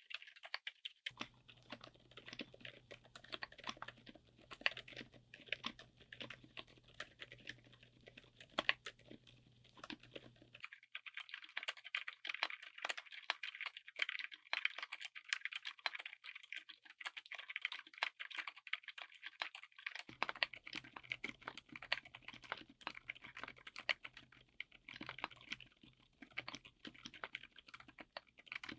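Continuous fast typing on a mechanical keyboard fitted with silent switches: a dense run of soft, damped keystrokes. A low hum under the typing drops out about a third of the way in and returns about two thirds in.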